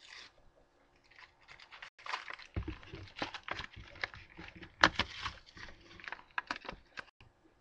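Plastic wrapping on a Pokémon trading-card pack being torn and crinkled open. The crackling starts about two and a half seconds in, comes in quick irregular bursts, and ends shortly before the end.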